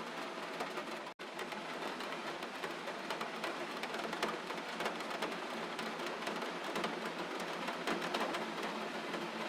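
Steady gentle rain, an even hiss full of fine drop ticks, with a momentary dropout about a second in.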